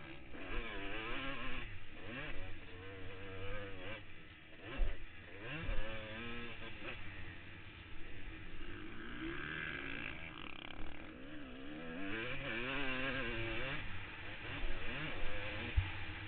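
Motocross dirt bike engine revving up and down again and again as the rider accelerates, shifts and rolls off, heard from the rider's helmet. A couple of heavy thumps come about five and six seconds in, and another near the end.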